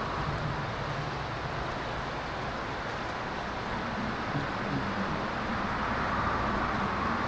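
Steady rush of a mountain stream's flowing water, an even noise with no breaks or distinct events.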